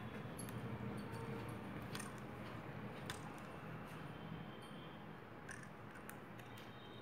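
Faint, scattered clicks and scrapes of a fluorescent light starter being handled and prised open by hand, its casing working loose.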